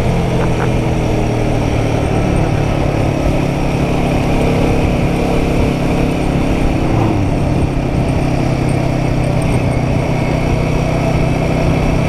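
Royal Enfield Guerrilla 450's single-cylinder engine running steadily at cruising speed while the bike is ridden, under steady wind and road noise.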